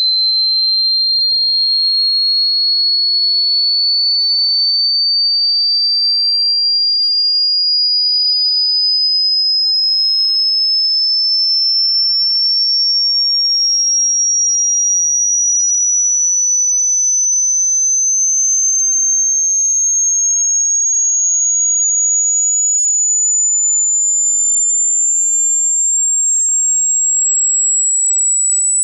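Electronically generated pure sine tone of a hearing-test frequency sweep, high-pitched and rising slowly and evenly in pitch at a steady loudness. It is the upper part of a sweep that runs from bass to treble.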